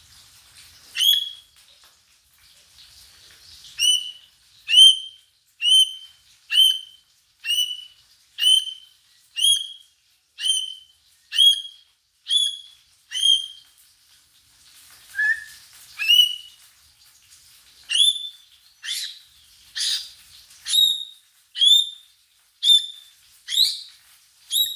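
A bird chirping over and over, a short high call about once a second, with a brief pause midway before the calls resume.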